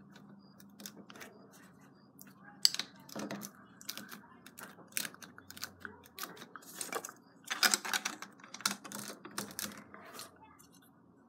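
Plastic LEGO bricks clicking and clattering as hands handle loose bricks and press them onto a baseplate wall. The clicks are irregular, densest around eight seconds in.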